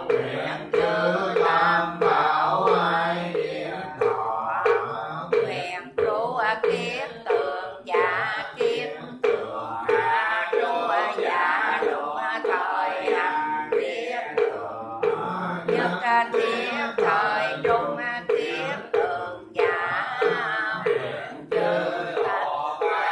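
Buddhist prayers chanted in a sing-song melody, kept to a steady beat of a little over two strokes a second.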